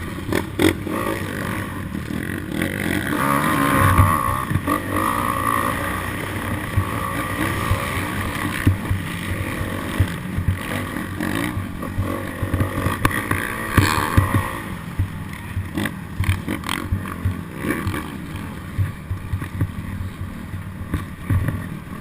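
A vehicle engine running under wind noise on the microphone, with scattered knocks and rattles.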